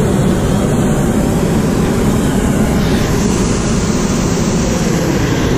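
Wind buffeting the camera microphone: a loud, steady low rumble with a fluttering texture.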